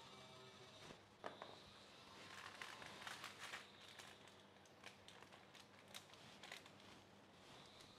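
Very quiet, with faint clicks and papery crinkles from handling a parchment-lined baking tray of chicken wings, a sharper tick about a second in and a busier patch of crinkling a little later.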